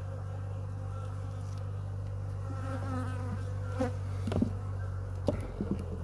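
Honeybee colony humming steadily over an open hive. From about four seconds in come a few sharp knocks and scrapes as the hive tool and hive boards are handled.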